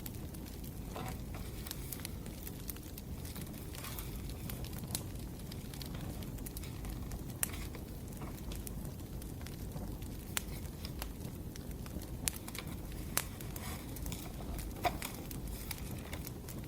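Burning firewood: a steady low rumble of flames with scattered sharp crackles and pops, a few louder snaps standing out in the second half.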